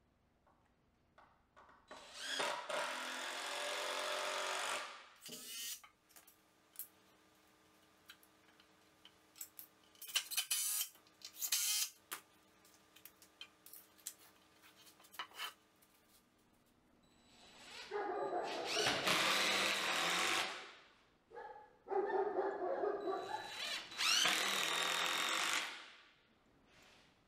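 A handheld power drill working wood in three runs of a few seconds each, spinning up at the start of each run. Scattered clicks and knocks in between, loudest around the middle.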